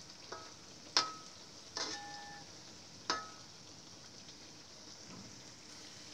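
Cassava fritters sizzling in hot oil in a wok, with a metal spatula clanking against the wok four times, each clank ringing briefly; the loudest is about a second in.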